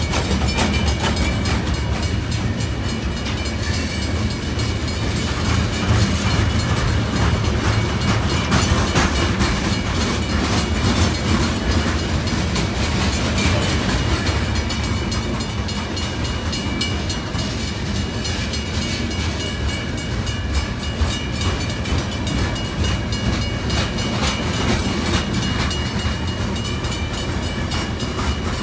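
Freight cars of a long Union Pacific train rolling steadily past at a grade crossing. Their steel wheels make a continuous rumble with fast clicking and clatter over the rails.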